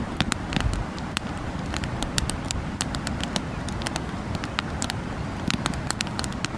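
Wood campfire crackling, with frequent irregular sharp pops and snaps over a low steady rumble.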